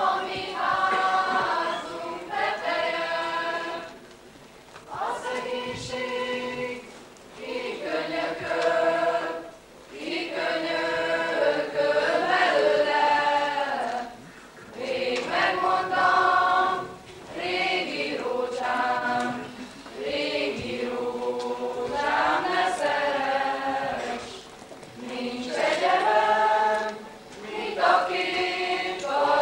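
A choir singing a slow song in phrases of a few seconds each, with short breaks between them.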